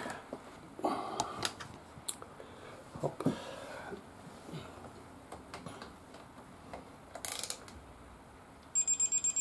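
Digital torque wrench beeping rapidly and high-pitched near the end, signalling that its set torque of 20 N·m is being reached as the final drive's magnetic oil drain plug is tightened. Before that, only scattered light clicks and knocks.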